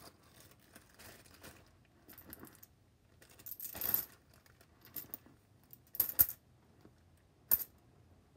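Tiny dominoes clicking and clacking against each other as they are gathered and dropped into a clear zip-top plastic bag, with the bag crinkling about halfway through and a few sharp clacks near the end.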